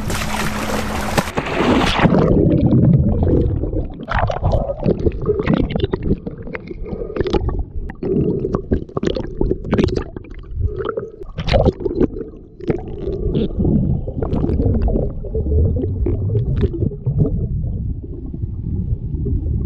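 A snorkeler with a speargun slips off a boat into the sea with a splash in the first two seconds. After that, everything is heard underwater: a muffled low rumbling with bubbling and many scattered clicks and pops as he swims.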